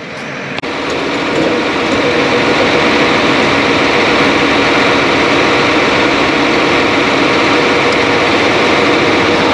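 An engine idling steadily, coming up to full level within about the first second.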